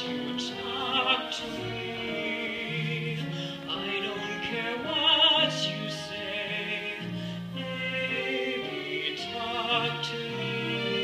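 Stage musical number: live singing with long held notes and a wavering vibrato over an instrumental accompaniment.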